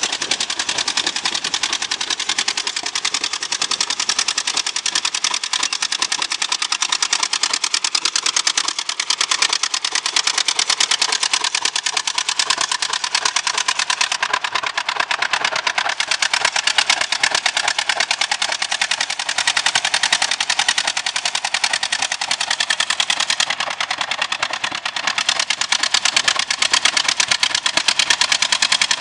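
Mauldin 1500 asphalt paver's engine running steadily with a rapid, even exhaust beat.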